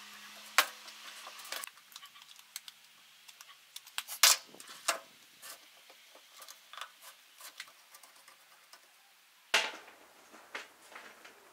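Scattered small clicks and knocks of metal lamp fittings and wooden stem parts being handled and fitted together, with sharper clicks about half a second, four seconds and nine and a half seconds in.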